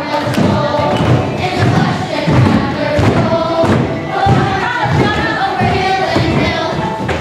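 A group singing a marching song over played-back musical accompaniment, with a heavy thudding beat about twice a second.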